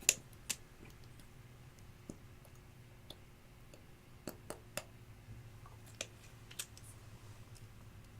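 Glossy slime being handled, giving scattered sharp sticky clicks and pops at irregular spacing, the first one much the loudest.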